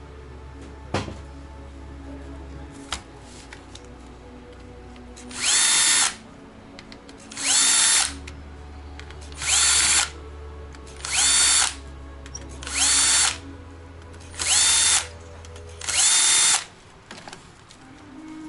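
Small electric screwdriver motor run in seven short bursts, about one every two seconds, each one a whine that spins up and holds briefly, as when driving a row of small screws.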